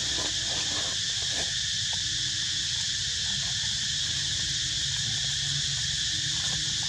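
Steady high-pitched chorus of insects such as crickets or cicadas, with a few soft rustling crunches in the first second and a half and several faint short low tones in the middle.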